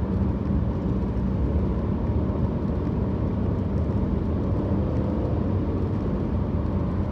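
Steady road and engine noise of a car driving along the highway, mostly a low rumble with a faint hum.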